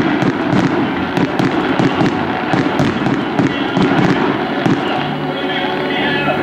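Fireworks going off in quick succession, a dense run of bangs and crackles several a second. About five seconds in the bangs stop and music with held notes comes in.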